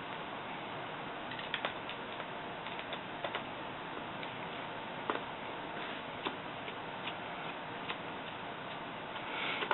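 Light, irregular clicks and ticks of a small screwdriver and handled metal and plastic parts as the screws in the corners of a laptop's screen panel are taken out, over a steady faint hiss.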